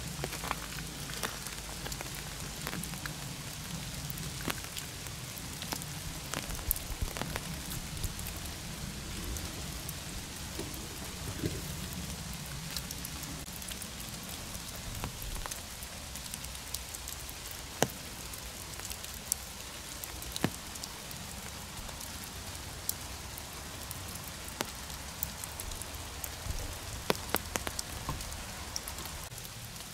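Steady rain falling in a leafy forest, with scattered sharp taps of single drops landing.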